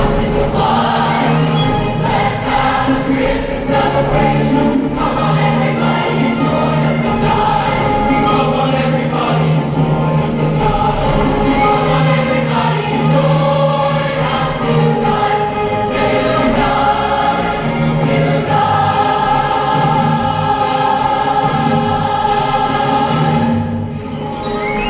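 Large choir singing a Christmas piece with instrumental accompaniment, performed live.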